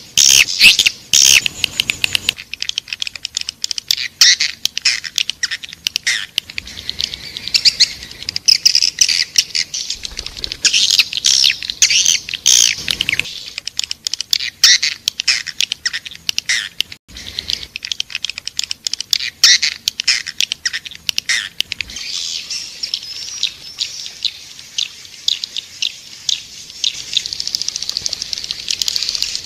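Swiftlet lure call: a dense, continuous chatter of rapid high chirps and clicks from many swiftlets, rising and falling in density. It is played to draw swiftlets into a nesting house.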